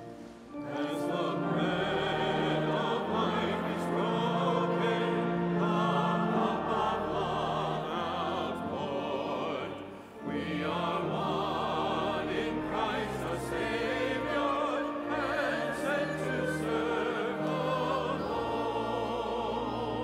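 Sacred choral singing with organ accompaniment: wavering voices over steady held low notes. The music breaks off briefly about halfway through and then resumes.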